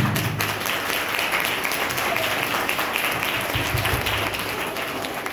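A roomful of students applauding, dense clapping that eases off slightly near the end, with a low thump at the very start.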